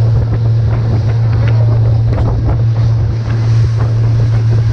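Fishing boat's engine running steadily under way, a constant low hum, with wind buffeting the microphone and the rush of water around the hull.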